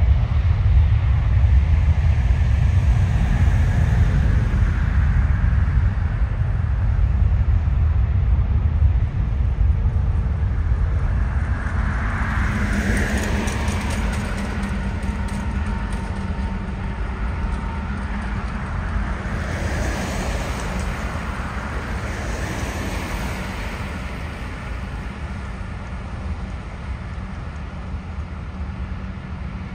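Jet airliner's engines, a loud low rumble that slowly fades as the aircraft moves away.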